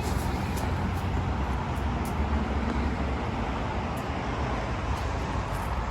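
Steady road noise with a constant low rumble, from moving along a road.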